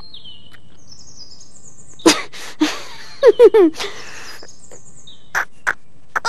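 Straining grunts and breaths while someone tries to twist a stuck lid off a treacle pot: sharp bursts about two seconds in, then three quick falling-pitched grunts, then a few short catches of breath. Faint birdsong chirps sound behind.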